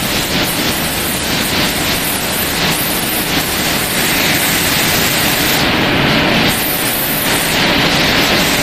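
Rice extruder production line machinery running in a factory hall: a steady, loud rushing noise of motors and dryer equipment.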